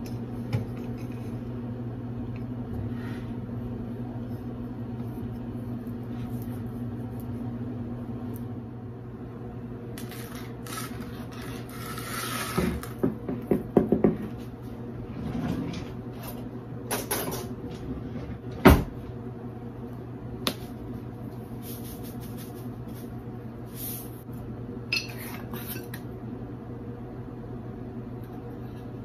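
Kitchen handling sounds: scattered knocks and clinks as containers, a measuring spoon and a fork are set down and tapped against a glass bowl and the countertop, with one loud knock about two-thirds of the way through. A steady low hum runs underneath.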